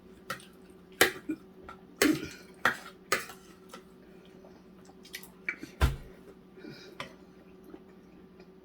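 Eating utensils clinking and knocking against bowls and plates in irregular, scattered clicks, a few with a short ring, and one duller thump about six seconds in. A faint steady hum lies underneath.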